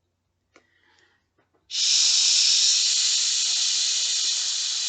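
A person's voice holding a long "shhh", the /ʃ/ sound of the Portuguese letter X. It starts about two seconds in and is held steadily to the end, as the drawn-out start of the syllable "chá".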